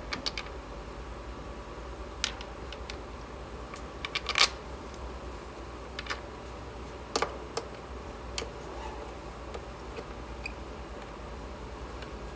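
Scattered light clicks and taps of screws being handled and set back into place by hand, with a small cluster about four seconds in, over a steady low hum.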